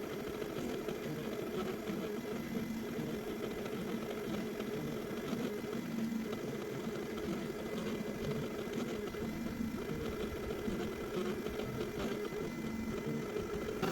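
X-Carve CNC router carving into pine with a 90-degree V-bit: a steady machine hum from the spindle and the moving gantry, wavering slightly as the bit cuts.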